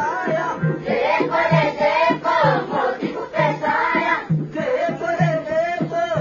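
Adivasi folk dance song sung by a group of voices together, over a steady low beat about twice a second.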